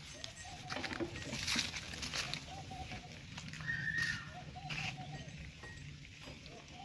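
Farm livestock calling in short, repeated, wavering cries, with scattered clinks and knocks.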